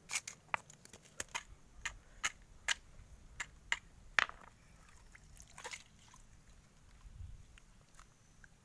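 Sharp clicks and taps of stones and brittle, charred sea urchin shells knocking together as grilled sea urchins are opened by hand. Most of the clicks come in quick succession in the first four seconds, then only a few scattered ones.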